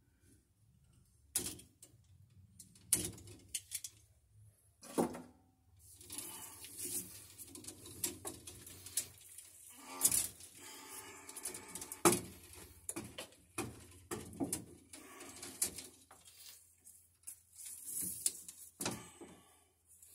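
Outer plastic jacket and paper wrapping of 10/3 Romex cable being peeled and pulled off the wires by hand: crinkling and rustling with sharp snaps and clicks scattered throughout, starting after a quiet second or so.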